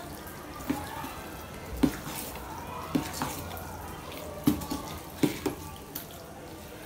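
A steel spoon stirs thick, wet handvo batter of fermented rice and lentils in a stainless steel pot: a sloppy squelching broken by several sharp clinks of the spoon against the pot.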